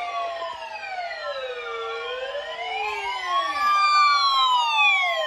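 Several warning sirens wailing together out of step, each slowly rising and falling in pitch about every four seconds, set off by a weather-radio Required Weekly Test alert.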